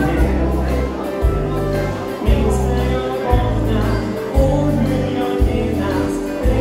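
A live dansband plays electric guitar and keyboard with a sung vocal over a bass line that changes notes about once a second.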